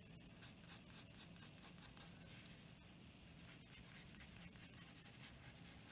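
Faint scratching of a graphite pencil on drawing paper, many quick short strokes as lines are sketched in.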